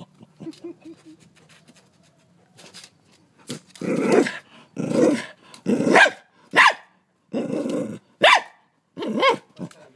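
Dog barking at close range at a large stick insect it is trying to bite. After a few quieter seconds comes a run of about seven sharp barks over the second half, one of them longer and drawn out.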